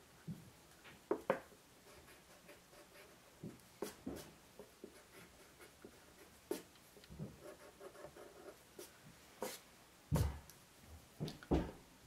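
Pencil drawing on paper glued to a board: faint scratchy strokes with scattered light taps and clicks, and a soft knock about ten seconds in.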